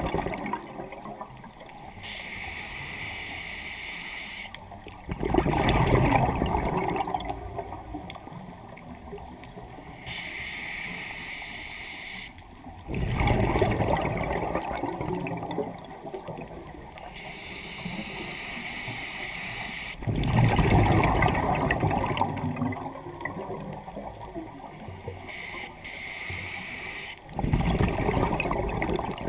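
Scuba diver breathing through a regulator underwater: a thin hiss on each inhale, then a loud rush of exhaled bubbles. The cycle comes about every seven to eight seconds, four times over.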